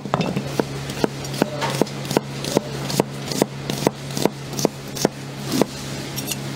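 Kitchen knife slicing onion halves on a cutting board: a steady run of sharp chopping knocks, about two and a half a second, over a steady low hum.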